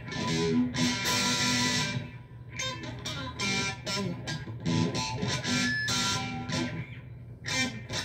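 Electric guitar playing a lead line of quickly picked single notes, with a brighter, fuller passage about a second in.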